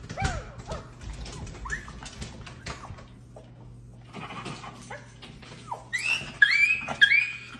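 Small dog whining and whimpering in short, high-pitched cries, louder and higher near the end. This is the whining of a dog with separation anxiety.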